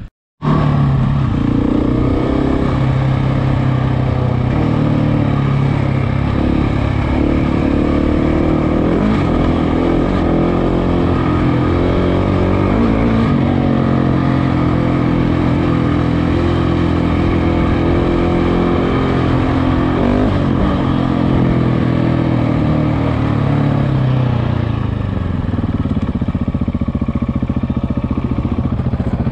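KTM motorcycle engine running under way as the bike is ridden, its note rising and falling a little with the throttle, then easing off near the end.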